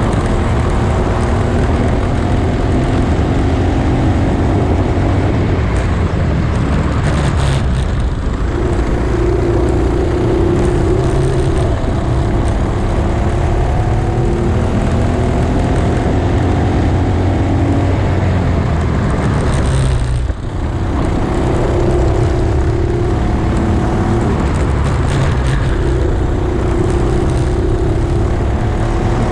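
A Honda Cadet kart's small four-stroke SP engine running at racing speed, its pitch climbing again and again as it accelerates out of corners and falling back as it lifts. There is a short break in the sound about 20 seconds in, over a constant low rumble.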